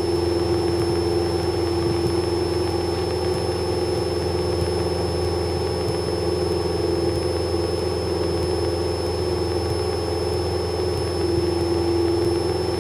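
Cessna 172's piston engine and propeller droning steadily, heard from inside the cabin in the climb just after takeoff. A thin, steady high whine runs over it.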